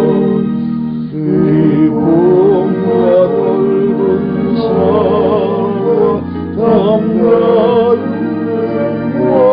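A hymn sung in parts by soprano, tenor and bass voices, with sustained notes carrying vibrato.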